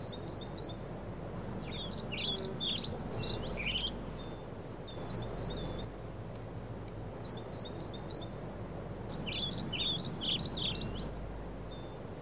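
Birds chirping: short high chirps repeated in small groups, with two runs of quick warbling notes separated by a pause, over a low, steady background rumble.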